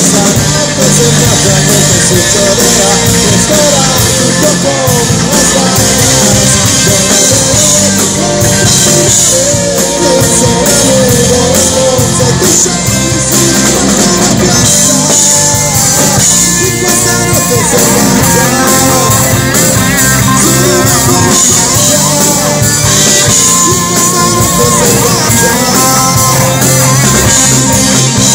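Live rock band playing loudly: electric guitars, bass and drums, with a lead line that bends and wavers in pitch.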